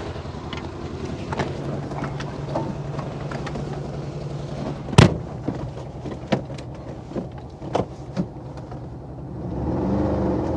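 Porsche 914's air-cooled 1.7-litre flat-four engine idling, with clicks and knocks as the driver gets in and the car door shutting with a loud slam about five seconds in. The engine note rises near the end.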